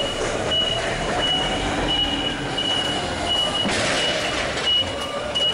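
Forklift warning beeper sounding a steady, high-pitched beep about two and a half times a second, over the running noise of forklifts working at a loading dock, with a louder burst of noise about four seconds in as the forklift passes close by.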